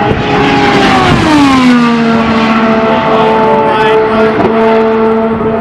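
An IndyCar's 2.2-litre twin-turbo V6 screaming past at qualifying speed. Its pitch drops sharply about a second in as the car goes by, then holds a steady lower note as it runs away down the track.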